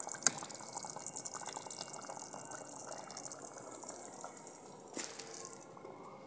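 Thick kadhi bubbling and popping in a karahi as it simmers, a dense fine crackle that dies away shortly before the end. A single knock about five seconds in.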